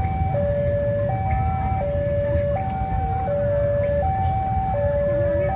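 Level-crossing warning alarm sounding a steady two-tone electronic signal, alternating high and low about every three-quarters of a second, warning of an approaching train. A low rumble runs underneath.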